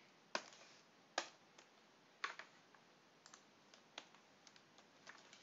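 Faint computer keyboard key presses: scattered single clicks at irregular intervals, some up to a second apart, while code is edited.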